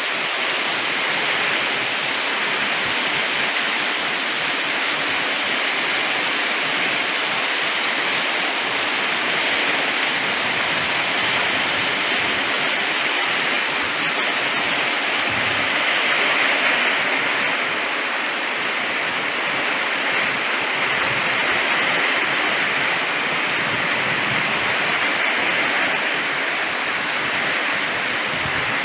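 Heavy summer-storm rain pouring down, a dense, steady hiss that does not let up.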